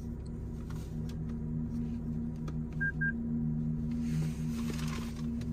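Two short, high electronic beeps from the car's controls, close together, over a steady low hum. A soft hiss follows about four seconds in.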